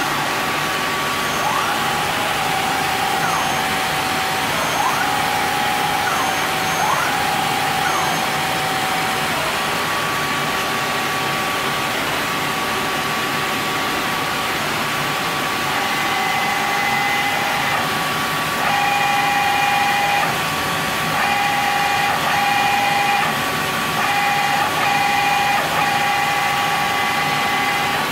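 Index ABC CNC turning center running under power: a steady hissing machine hum with a constant motor whine. Short whines glide up and down in pitch during the first eight seconds or so. From about halfway through, a higher whine keeps switching on and off.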